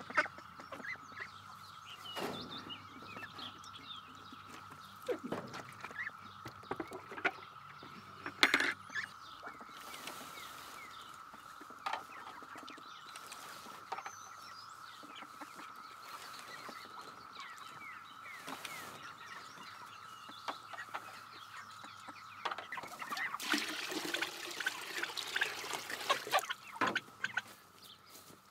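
Ducks and chickens calling and clucking in their pasture pens, with scattered knocks and clatter. Near the end comes a few seconds of scraping and rustling.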